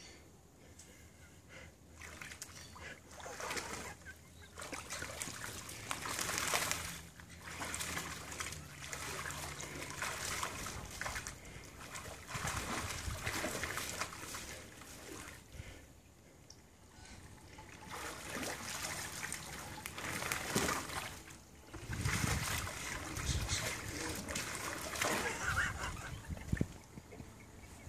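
Water sloshing and splashing in a small plastic paddling pool as a large Labrador–Mastiff cross dog shifts about in it, coming in uneven bursts with a few short lulls.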